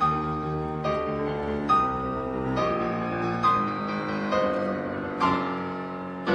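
Background piano music: slow notes and chords struck about once a second, each ringing on into the next.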